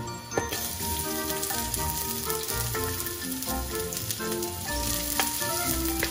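Ginger and red onion sizzling in hot oil in a wok, stirred with a wooden spatula, with a few sharp clicks. A melody of short notes plays throughout as background music.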